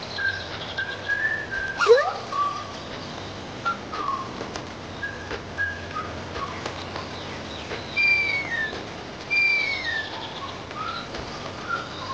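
Birds calling: a string of short, high chirps with a quick upward glide about two seconds in, then two louder whistles that each fall in pitch, about a second and a half apart.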